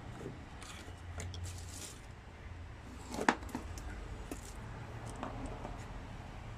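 Handling noises around the engine: scattered light clicks and rustles, with one sharp click a little over three seconds in, over a low steady hum.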